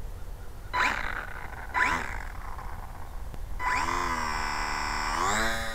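Small electric motor and propeller of a WLtoys F939 micro RC airplane. It gives two short throttle blips, each a quick rising whine, then about three and a half seconds in it spools up to a steady whine and rises higher again near the end.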